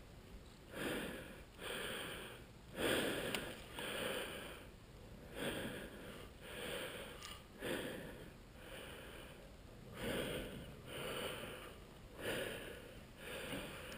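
A person breathing heavily close to the microphone: noisy in-and-out breaths, often in pairs, coming about once a second.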